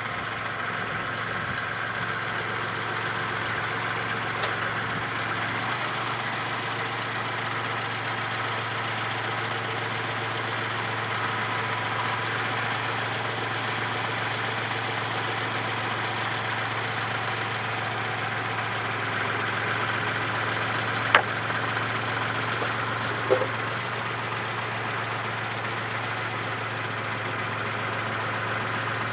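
Engine of a machine with lifting forks running steadily, as it raises a load of deck boards up to a deck. Two sharp clunks sound about two seconds apart in the latter part.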